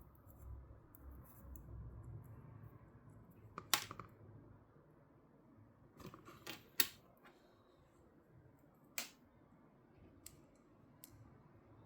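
Scattered small clicks and taps of tiny parts being handled: a small washer being worked onto a drone's gear spindle. There are about six sharp clicks in all, the loudest about four and seven seconds in.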